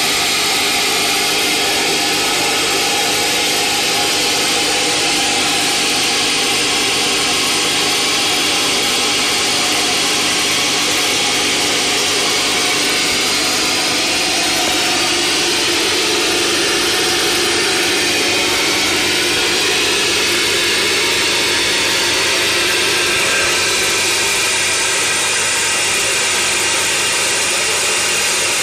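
Plasma torch of a CNC pipe profile cutting machine cutting through a steel pipe: a loud, steady hiss of the cutting arc and its gas jet, unbroken throughout.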